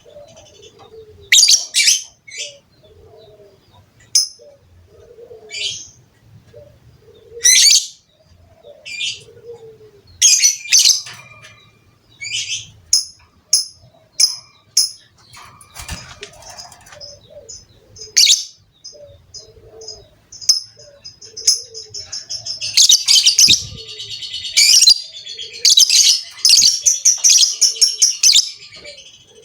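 Lovebird calling in sharp, high-pitched chirps, breaking into a long rapid chattering run near the end. Soft low cooing notes repeat underneath.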